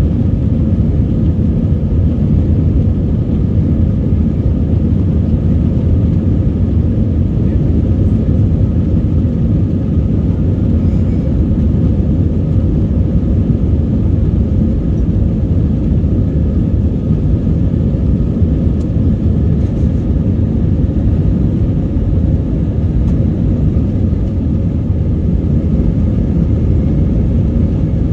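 Cabin noise of an Airbus A321 taxiing: a steady low rumble from its jet engines at low power and the rolling airframe, with faint steady whining tones above it.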